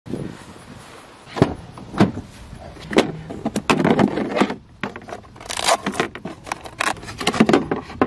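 Plastic clicks and knocks with metal clatter: a Ford Transit's plastic storage compartment being opened and its lug wrench bar handled and pulled out, in a string of sharp separate impacts.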